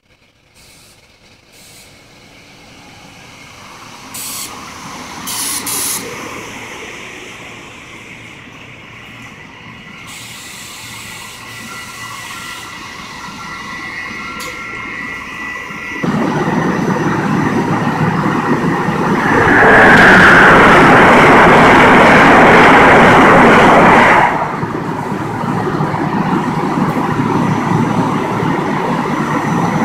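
SEPTA electric commuter train approaching and running into the station, growing steadily louder. About two-thirds of the way through it becomes a loud hissing rush for about four seconds as the cars pass close by, then settles to a steady rumble.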